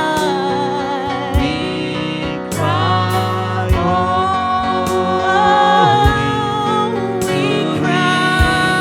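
Worship band and singers performing a slow gospel praise song: long held, wavering sung notes over sustained instrument chords, with a drum hit about every 1.2 seconds.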